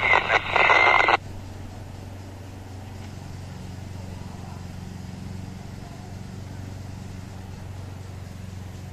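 A burst of an unidentified UHF utility signal played through a handheld FM transceiver's speaker, broken and buzzy with a steady high tone in it, cuts off suddenly about a second in. A faint steady low hum follows.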